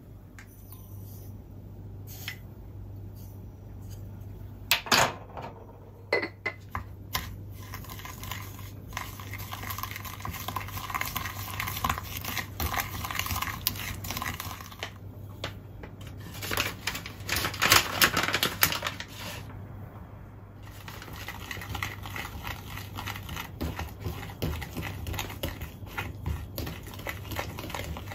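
Wooden spoon stirring and scraping egg yolk, sugar and cornstarch in a glass bowl, with irregular taps and clicks of wood on glass and louder knocks about five seconds in and again after about seventeen seconds. A low steady hum runs underneath.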